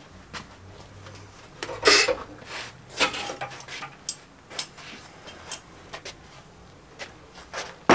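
Irregular clanks and knocks of a VW T4's radiator and twin-fan assembly being worked loose and lifted out, metal and plastic parts knocking together, loudest about two and three seconds in.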